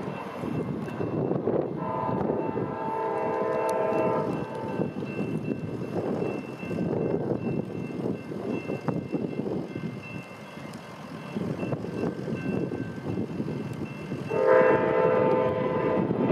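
Amtrak Empire Builder locomotive's horn sounding a long multi-note chord about two seconds in, and again near the end, louder as the train draws closer. Steady road-traffic rumble from passing vehicles runs underneath.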